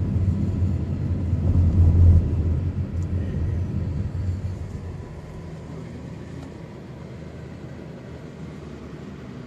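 Diesel railcar passing close by, its engine rumbling low and loud. The sound peaks about two seconds in, then fades away over the next few seconds as the railcar moves off.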